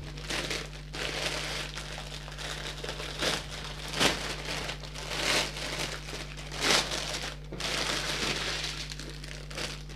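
Plastic crinkling and rustling as a large clear bag full of small sealed packets of diamond-painting drills is handled and emptied out. The rustling is irregular, with louder surges about three, four, five and a half and seven seconds in.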